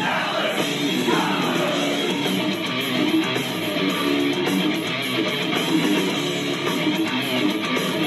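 Rock goal song with strummed electric guitar playing steadily after the goal horn.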